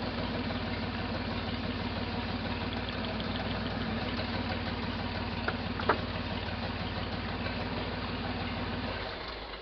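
Buick V6 engine idling with a misfire on one rear cylinder. A short sharp snap comes about six seconds in, and the engine shuts off near the end.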